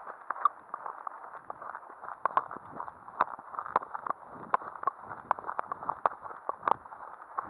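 A person's footsteps through long grass, with irregular knocks and rustling, sounding muffled as picked up by a body-worn action camera.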